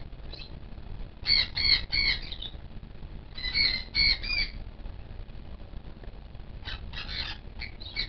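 Lesser sulphur-crested cockatoo giving short, high squawks in quick runs of three, twice, then a few fainter calls near the end.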